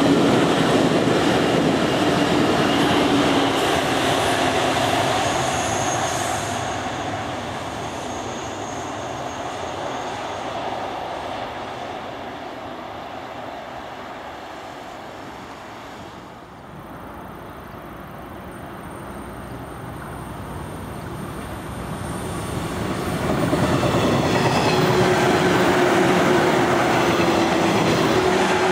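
Electric trains running past: an 813 series electric multiple unit's running noise fades away, and after a quieter stretch a long 415 series electric train approaches and passes close. The passing brings wheel clatter on the rails and a steady low hum.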